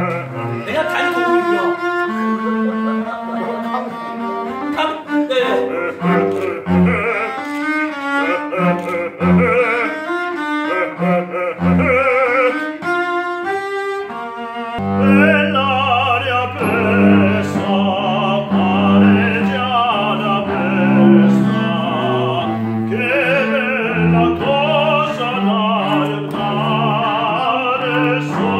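A man singing in operatic style with vibrato, accompanied by a bowed cello; the cello's low notes grow fuller about halfway through.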